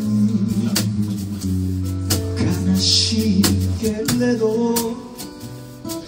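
Male voice singing a held melody over a strummed acoustic guitar, performed live. The music softens near the end.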